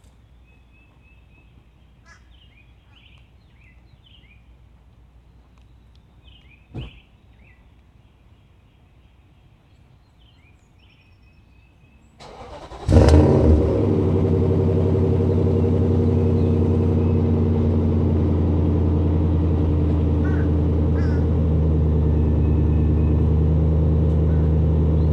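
Birds chirping, with one short thump about a quarter of the way in. About halfway through, a Nissan Titan's 5.6-litre V8 cranks briefly, catches with a loud burst and settles into a steady idle heard from behind the truck at the exhaust.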